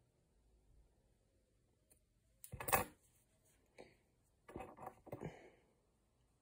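Hands handling a knitted cotton cardigan: a few short rustles and scrapes, starting about two and a half seconds in, the first one the loudest.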